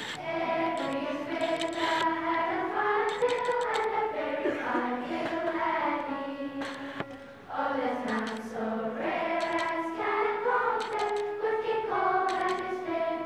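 Children's school choir singing together in several held, gliding lines, with a short break between phrases about seven seconds in.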